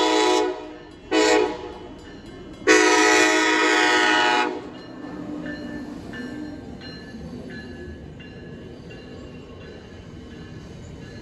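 Train air horn sounding in a long-short-long pattern, ending a standard grade-crossing horn sequence. A loud blast ends at the start, a short blast follows about a second in, then a long blast of nearly two seconds. After that the train rolls by with a steady rumble and faint, evenly repeating tones.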